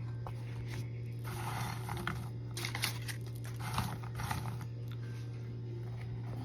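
Plastic packaging around a cornstarch brick crinkling as it is handled and opened, in three short rustling spells, over a steady low hum.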